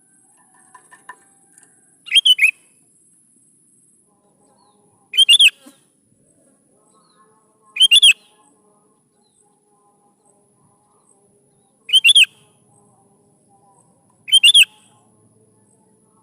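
Sooty-headed bulbul (kutilang) in full song: five short phrases, each a quick run of a few clear notes, spaced a few seconds apart.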